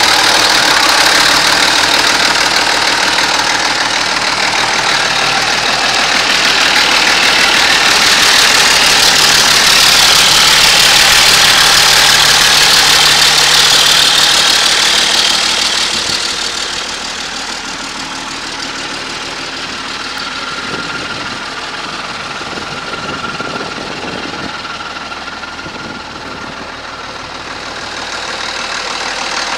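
1981 Case 2390 tractor's six-cylinder diesel engine running steadily at idle, growing noticeably quieter about sixteen seconds in.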